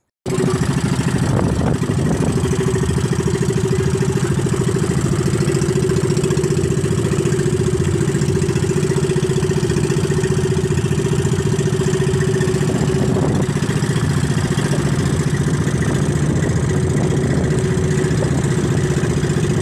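Gasoline engine of a small fishing bangka running steadily, a loud even drone with a fast regular pulse.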